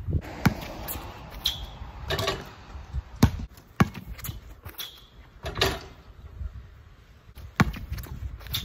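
A basketball bouncing on a concrete driveway as it is dribbled: sharp single bounces a few seconds apart, with a couple of longer rattling crashes between them.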